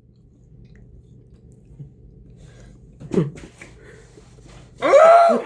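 A person's wordless vocal sounds in a quiet room: a short low groan about three seconds in, then a loud drawn-out cry near the end, reacting to the burn of a Carolina Reaper chicken tender. Small clicks around the groan.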